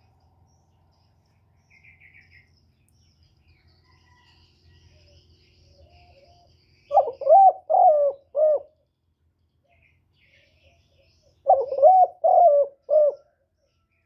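Spotted dove (chim cu gáy) cooing: two phrases of about four deep, pulsed coos, about four seconds apart. Faint chirps of other birds sound in the background.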